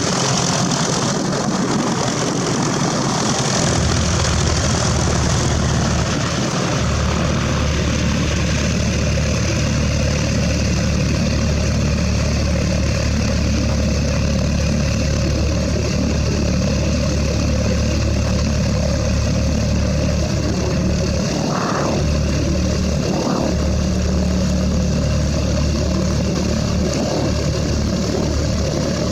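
Propeller aircraft engine running steadily, a low drone that comes in about four seconds in and holds at an even level.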